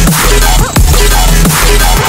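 Electronic dance music with heavy, sustained bass and a drum hit about every three-quarters of a second.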